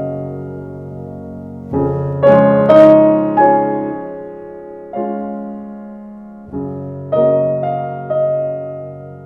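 Slow solo piano background music: soft chords struck one at a time every second or two, each left to ring and fade.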